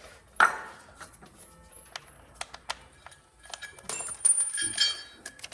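Hand tools working on an engine: scattered clicks and a knock about half a second in, then a cluster of metallic clinks with a short ringing near the end, as spark plugs are being taken out.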